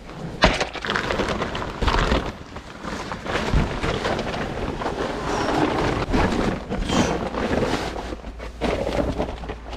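Tent fabric rustling and crinkling as a tent is unpacked and set up, with irregular knocks and bumps of gear.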